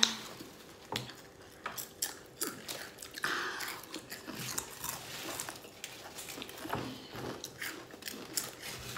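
Crunching and chewing of Doritos Flamin' Hot tortilla chips by several people eating at once, an irregular run of sharp crisp crunches.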